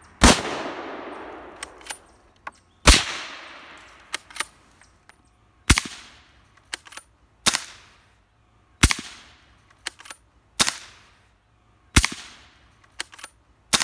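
Suppressed Remington 700 in .308 Winchester firing 225-grain subsonic handloads through an AAC 762-SDN-6 silencer: about eight sharp shots a second and a half to three seconds apart, the first two trailing off in a longer echo. Fainter clicks fall between the shots.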